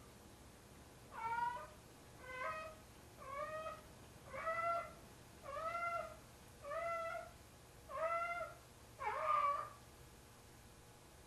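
Large domestic cat giving a run of eight drawn-out, yowling meows, about one a second, each rising then falling in pitch. This is the calling a cat does while carrying a toy to bed, here a pair of socks it treats as its kitten.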